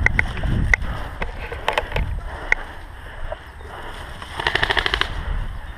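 Airsoft guns firing: a few scattered single shots, then a rapid burst of about ten shots near the end, over a steady low rumble.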